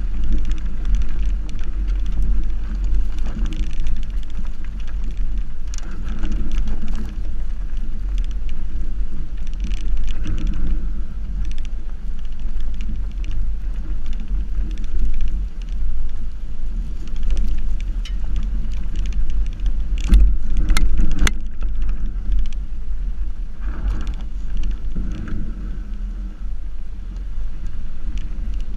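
Subaru XV driving along a dry dirt and gravel track, heard from low beside the front wheel: a steady low rumble of the tyres and running gear over the loose surface, with a cluster of sharp clicks about twenty seconds in.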